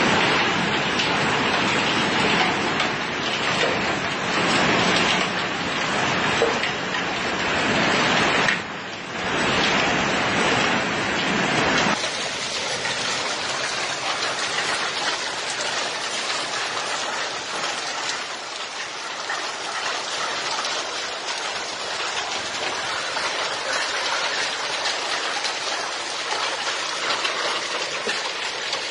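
Heavy hail pelting the ground in a dense, continuous hiss. The hiss dips briefly about nine seconds in, and a few seconds later it changes to a thinner, higher hiss.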